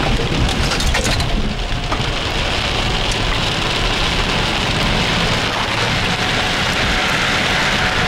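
Heavy rain beating on a car's roof and windshield, heard from inside the moving car along with the hiss of tyres on the wet road. A few sharp clicks come in the first two seconds.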